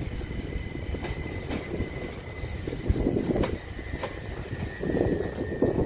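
Southern Class 377 Electrostar electric multiple unit arriving slowly into the platform. The wheels rumble and click over rail joints, and a steady high whine sounds throughout, dipping slightly near the end.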